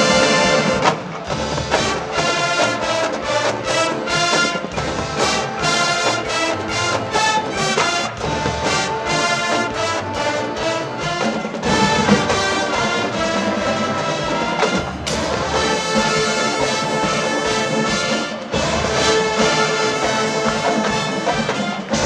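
Marching band playing loudly: a full brass section holding chords over a drumline beating a steady rhythm, with a short break in the sound about a second in.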